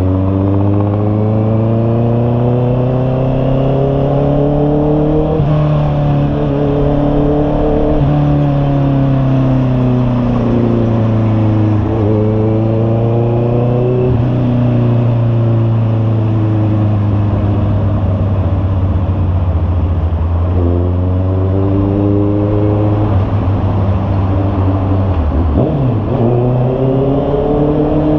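Honda CB650R's inline-four engine running through an aftermarket IMBA muffler on a ride. Its pitch rises under acceleration and eases off, with several sudden jumps and drops in pitch as it shifts gear or the throttle opens and closes.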